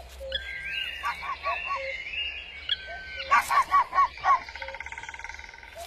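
Songbirds singing: whistled phrases, a run of four loud chirps about three seconds in, then a fast, even trill.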